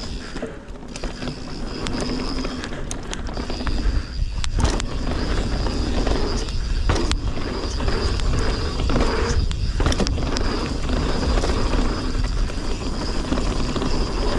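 Mountain bike rolling fast over a dirt singletrack: a steady rush of tyre and wind noise on the microphone, with low buffeting and scattered knocks and rattles from the bike over bumps.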